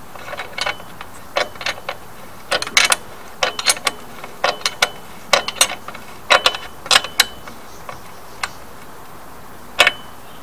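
Hand ratchet clicking in short, irregular runs of sharp clicks as a fitting on the motorcycle frame is turned.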